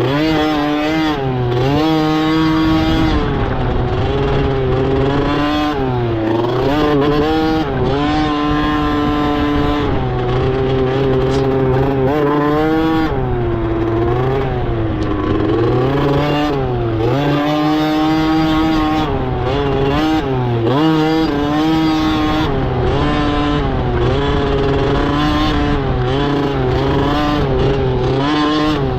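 Dirt bike engine revving hard through a race, its pitch rising and falling every second or two as the throttle opens and closes.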